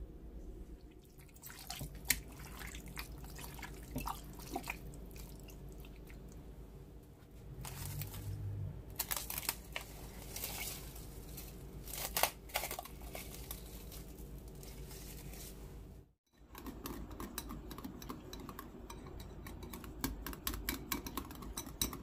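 Kitchen food-preparation sounds: scattered light clicks and knocks of utensils and containers, with wet, liquid handling, over a steady low hum.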